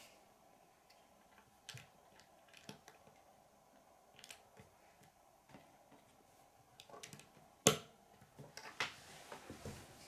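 Plastic Lego bricks clicking and tapping as they are handled and pressed together on a wooden tabletop: scattered small clicks, with the sharpest snap about eight seconds in and a quick run of taps just after.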